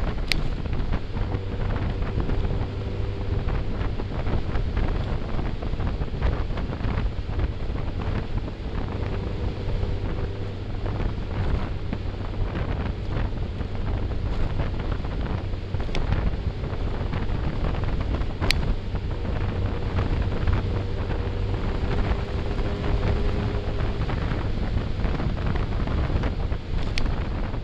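Heavy wind noise buffeting a motorcycle-mounted microphone at road speed, with the motorcycle's engine humming steadily underneath.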